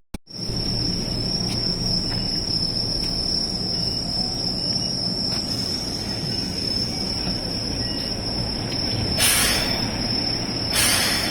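Keihan 600 series train running with a low rumble. A steady high-pitched whine sounds over it throughout, and two short bursts of hiss come near the end.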